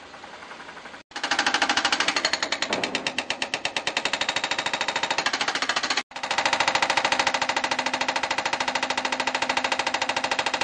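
Hydraulic hammer breaker on a backhoe loader's arm pounding a large boulder in rapid, even blows, with the machine's diesel engine running underneath. The hammering starts about a second in and breaks off briefly near the middle.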